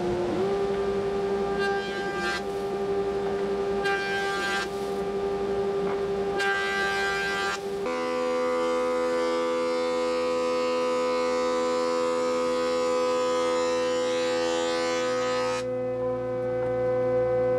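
Woodworking machines running with a steady whine: first a jointer, with three short surges of cutting noise as the board is pushed over the cutterhead. About eight seconds in it changes to a thickness planer running with a steady cutting hiss, which drops away near the end, leaving only the motor's whine.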